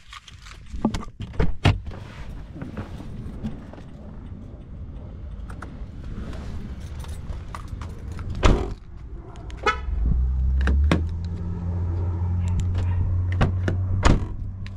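A Nissan Altima's driver door shut with a thud about halfway through, then a short horn chirp as the car locks. Keys on the smart-key fob jangle and click around it, and a steady low hum sets in after the chirp.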